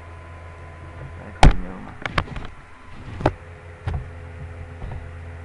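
Mouse clicks and knocks at the computer desk picked up by the microphone: five sharp clicks in about two and a half seconds, the first the loudest, over a steady low electrical hum.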